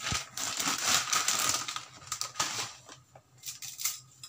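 Dry Maggi instant-noodle cakes crunching and crackling as they are crushed by hand, a dense crackle for the first couple of seconds, then a few separate snaps of breaking pieces.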